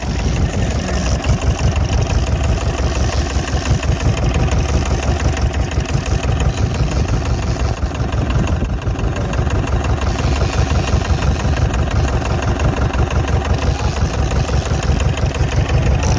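Fishing boat's engine running steadily with a fast, even throb.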